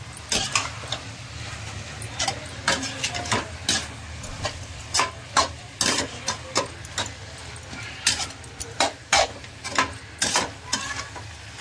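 Spatula stirring vegetables in a metal kadai, scraping and knocking against the pan in irregular clatters, several a second at times.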